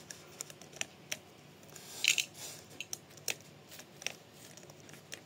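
Light metallic clicks and clinks of small metal parts being handled, irregular, with a louder cluster about two seconds in.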